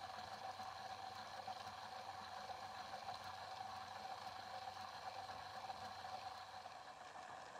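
A small motor in a toy strobe light animator runs steadily as it spins the figure turntable. It makes a faint, even whir with one steady tone.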